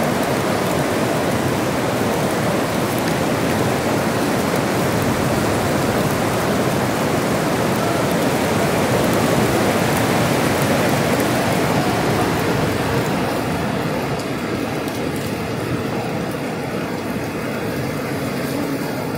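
Steady rain falling, heard from under a large fabric canopy: a continuous hiss that grows a little softer and duller in the last few seconds.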